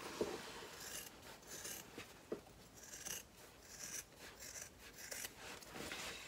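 Scissors snipping through layers of cotton fabric while trimming a seam allowance: a string of irregularly spaced snips, with the fabric rustling as it is handled.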